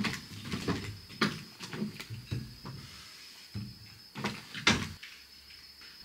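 A series of knocks and clunks, about six, the loudest near the end, as a plate and things are set down on a wooden table, over a faint steady high-pitched tone.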